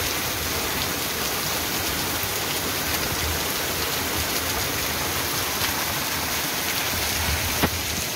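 Heavy rain pouring down on a stone-paved street, a steady, unbroken hiss of falling drops. A single sharp click near the end.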